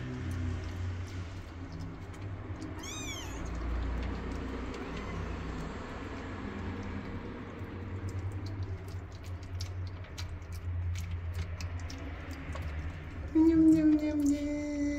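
A cat meowing: one long, loud meow near the end, falling slightly in pitch, after a brief high-pitched squeak about three seconds in, over a low steady rumble.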